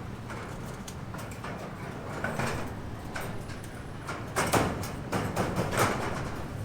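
Scattered knocks and scraping, with several sharp knocks close together a little past the middle.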